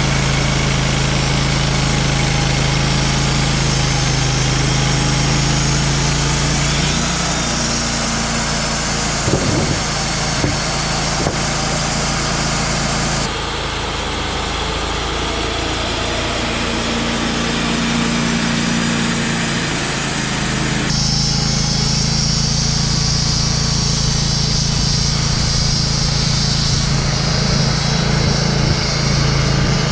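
Wood-Mizer LT35 Hydraulic portable sawmill running, its engine giving a steady drone. The sound changes abruptly about 7, 13 and 21 seconds in, and a few short clicks come around 9 to 11 seconds.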